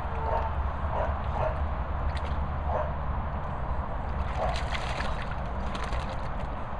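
Labrador puppy splashing about in a shallow paddling pool, pawing and nosing through the water after a rubber ring toy: repeated small splashes and sloshing.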